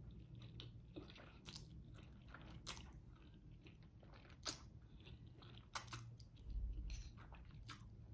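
Faint close-up eating sounds: spaghetti carbonara being slurped in through pursed lips and chewed, with scattered small wet mouth clicks.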